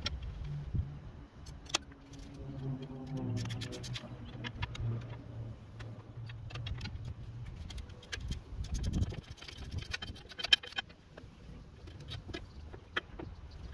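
Steel hand wrenches clinking and clanking against each other and the steel frame of a railroad tie remover as bolts are worked loose, in scattered sharp clicks with one louder clank about ten seconds in. A low steady hum sounds underneath for a few seconds early in the stretch.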